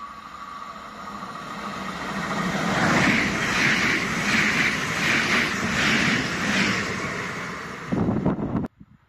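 ČD Interpanter class 660 electric multiple unit passing at speed. Its noise builds as it approaches, then stays loud with a regular beat about every 0.7 s while the cars go by, and cuts off abruptly near the end.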